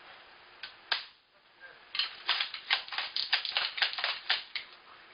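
Sharp plastic clicks from handling an airsoft shotgun: one click about a second in, then a quick run of about a dozen clicks at roughly five a second.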